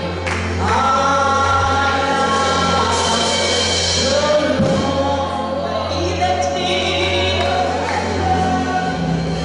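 Gospel music: a choir singing over instrumental accompaniment, with a sustained low bass note.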